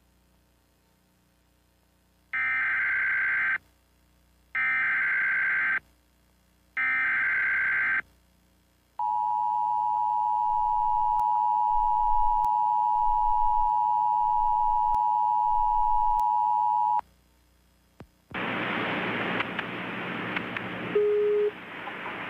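Emergency Alert System tones: three short bursts of the SAME header data screech, about a second each, then the two-tone EAS attention signal held steady for about eight seconds. After a short gap, a few seconds of loud hiss with a brief low beep follow.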